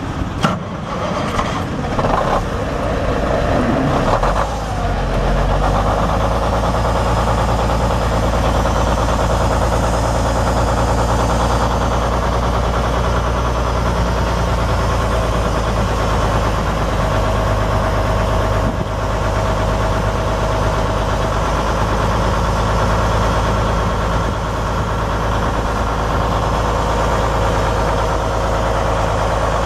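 A Cummins N14 14-litre inline-six turbo diesel in a 2001 Freightliner Columbia is started, with a few seconds of uneven starting sound. It catches about four or five seconds in and then idles steadily with a low, even rumble.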